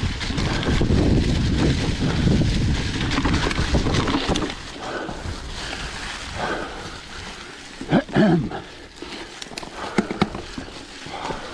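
Mountain bike riding over a dirt trail thick with dry fallen leaves: tyres crackling through the leaves and the bike rattling, with heavy wind on the microphone during the first four seconds or so. A brief loud sound about eight seconds in.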